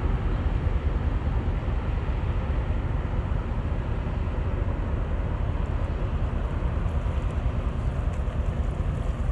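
Steady low rumble of a passing boat, mixed with wind buffeting the microphone.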